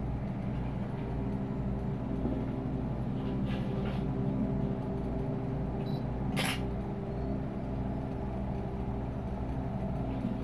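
Horror film soundtrack playing a steady low rumbling drone, with one short sharp noise about six and a half seconds in.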